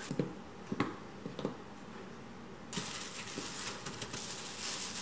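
Quiet kitchen handling of minced meat and breadcrumbs in a frying pan: a few soft taps and clicks, then, nearly three seconds in, a steady rustling hiss sets in.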